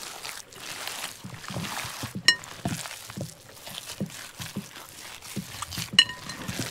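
Cookware being handled during cooking: two sharp ringing clinks, about two seconds in and again near the end, among softer knocks and faint liquid sounds.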